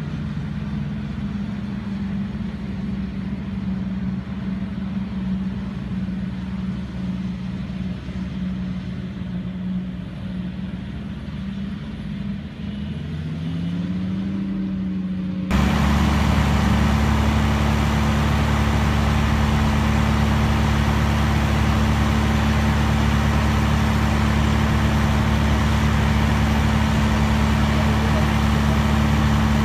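Forage harvester and tractor engines running steadily while working a maize field, their note rising once near the middle. Then, after a sudden cut, a louder John Deere tractor engine running steadily close by.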